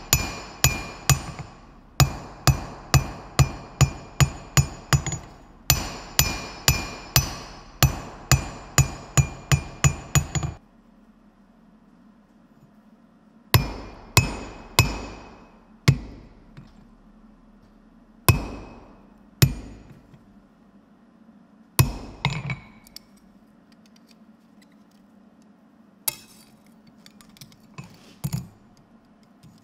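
Forging hammer striking hot flat bar stock on a steel anvil, with a ringing note after each blow. The blows come in a quick, steady run of a little over two a second that stops about ten seconds in. After a pause, a handful of single blows follow, spaced a second or more apart, as the bar is worked over a bottom tool on the anvil.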